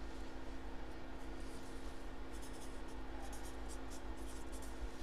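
A pen scratching out handwriting on a paper envelope in a run of short strokes, over a steady low hum.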